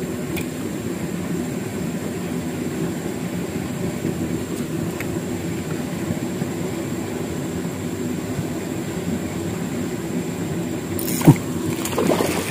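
A motor running steadily, a low drone of several even tones that does not change, with one sharp click near the end.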